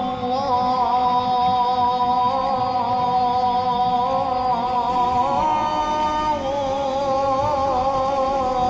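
Male voice singing an Arabic salawat nasheed, drawing out long melismatic notes with a wavering pitch that slides from note to note.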